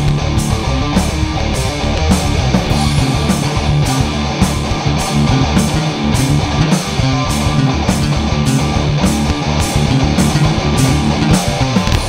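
Live rock band playing: electric guitar and bass guitar over a drum kit, with cymbals struck on a steady beat of roughly two to three hits a second.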